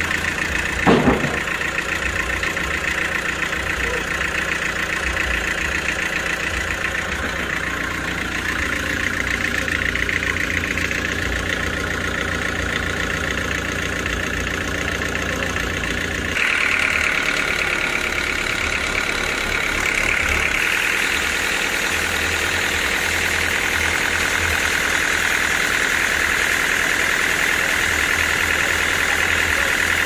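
Band sawmill machinery running steadily, a constant mechanical drone with a high whine. About halfway through it gets a little louder and the whine grows stronger.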